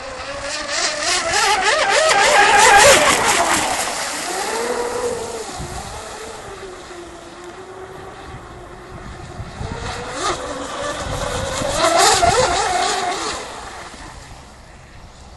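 40-inch twin-motor 12S electric RC drag hydroplane making two fast passes. The high motor whine rises and falls in pitch as it goes by, over the hiss of its spray. It is loudest about three seconds in and again near twelve seconds.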